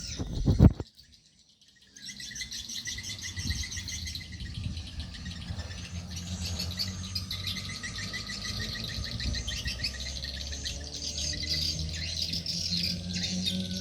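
Small birds chirping in fast, high, repeated notes and trills. A loud low knock comes just before a brief silence about a second in, and a low hum runs underneath.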